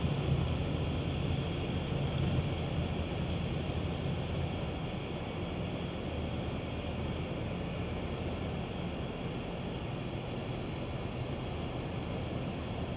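Semi truck's diesel engine running steadily at low speed, loudest at the start and easing off over the first few seconds as the truck moves away.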